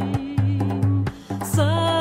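Traditional Shavuot folk song: plucked string instruments over a steady low beat about twice a second, with a voice coming in singing near the end.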